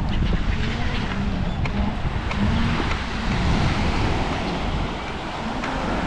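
Wind buffeting the microphone with a steady low rumble, over the hiss of beach surf.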